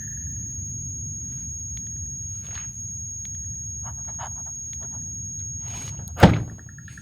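A steady high-pitched whine over a low rumble. A little after six seconds in, the whine stops and a single loud thud hits.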